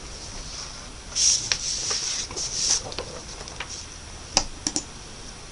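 Faint rustling and breathy noises with a few sharp clicks, three of them close together about a second before the end.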